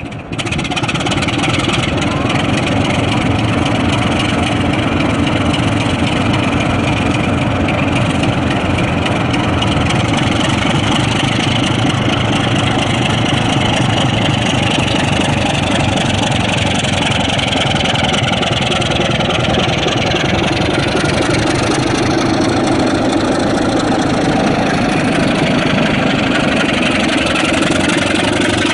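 Diesel locomotive engine running loud and steady, coming in abruptly just after the start.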